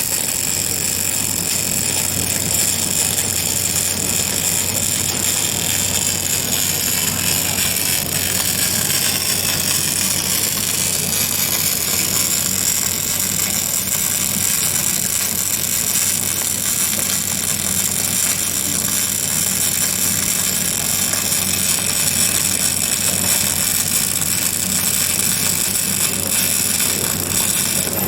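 Electric arc welding: the arc burns with a steady, continuous hiss, over the hum of the welding machine.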